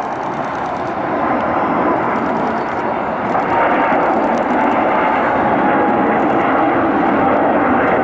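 Boeing 777-300ER's twin GE90-115B turbofans at takeoff thrust as the airliner lifts off and climbs out: loud jet engine noise that grows over the first few seconds and then holds steady, with a faint steady whine running through it.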